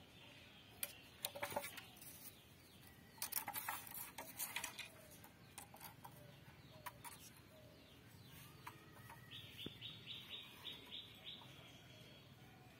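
Faint birdsong, with a quick run of high chirps, about six a second, starting about nine and a half seconds in. Scattered sharp clicks in the first few seconds.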